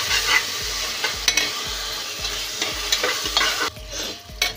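Chopped onions frying in hot mustard oil in a pressure cooker, sizzling while a metal spatula stirs and scrapes against the pot with repeated short scrapes. The sizzle falls away sharply near the end, and one last sharp scrape comes just before the end.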